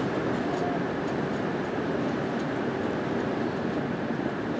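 Strong wind blowing in a steady rush of noise.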